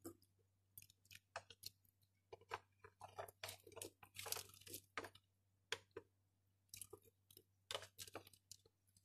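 Plastic serving spoon scraping chopped vegetables across a glass plate and tipping them into a pot of broth: a run of faint, irregular scrapes, clicks and soft plops.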